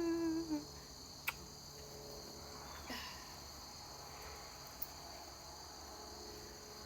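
Crickets chirring steadily outdoors. A held, wavering tone, a hum or whine, trails off about half a second in, and there is a single sharp click at about a second.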